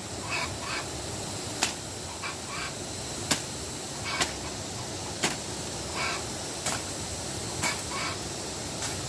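Sharp knocks or taps about every one to one and a half seconds, with short scraping sounds between them, over a steady hiss.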